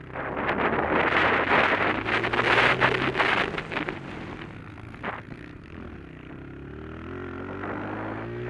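Honda CRF125 pit bike's single-cylinder four-stroke engine running under load, heard on board. A loud rushing, buffeting noise covers it for the first few seconds, then quietens, and near the end the engine note climbs steadily as the bike accelerates.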